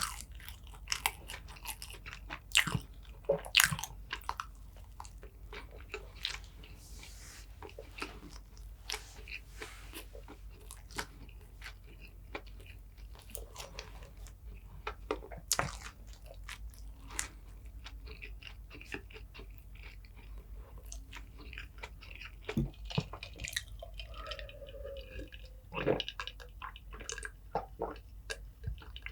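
Close-miked eating sounds: a person chewing and biting food, with many irregular sharp, clicky bites and mouth sounds.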